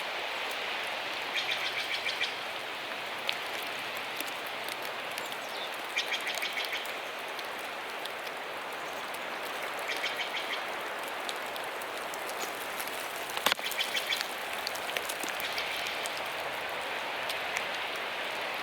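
Steady rain-like hiss with a short, rapid chirping call repeating about every four seconds, and one sharp click about two-thirds of the way through.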